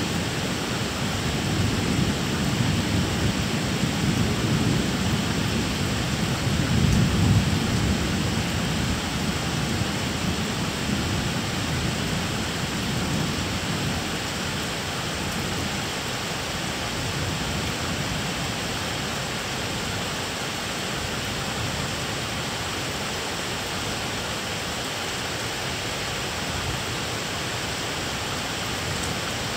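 Thunder rumbling over steady rain. The rumble swells about a quarter of the way in and fades away by about halfway, leaving only the even hiss of the rain.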